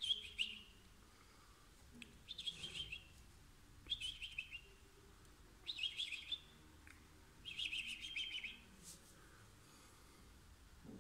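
Cockatiel chirping in five short bursts about two seconds apart, each a quick run of notes falling slightly in pitch.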